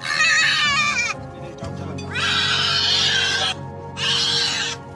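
An animal crying out three times, loud and high-pitched, over background music.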